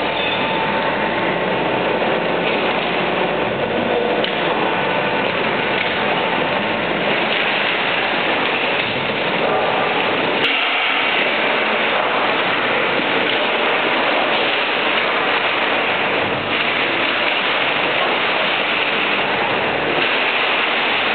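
Steady, loud industrial din of a baler's inclined steel chain conveyor carrying hard plastic waste, the plastic rattling as a forklift bucket tips more onto it, with the forklift's engine running underneath.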